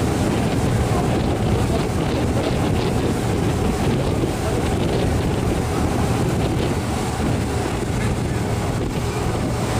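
Steady wind noise on the microphone over the even low rumble of a boat's engine.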